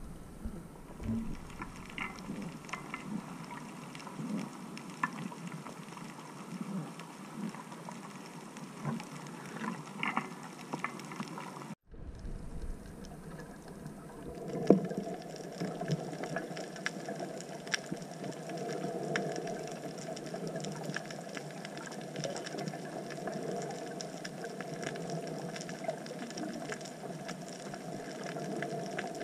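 Underwater sound picked up through a camera housing on a coral reef dive: a muffled watery wash with short low gurgles and scattered clicks and crackles. After a cut about twelve seconds in it becomes a steadier hum with denser crackling.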